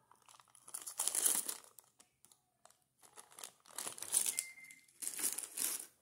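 Small clear plastic zip-lock bag of electronic components crinkling as it is handled, in several short bursts with quiet gaps between.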